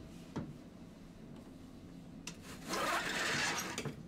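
A single click, then, about three seconds in, a loud hiss of air that rises at its onset and lasts a little over a second, from the old streetcar's pneumatic equipment.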